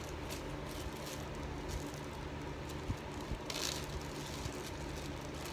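Soft handling noises of slime and its plastic container, with faint clicks and a brief louder rustle about three and a half seconds in, over a steady low hum.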